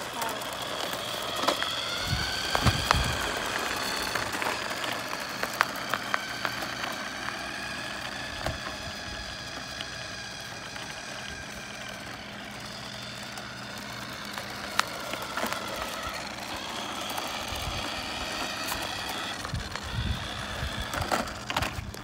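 Remote-control toy semi truck's small electric drive motor whining as it drives, the pitch rising and falling as it speeds up and slows.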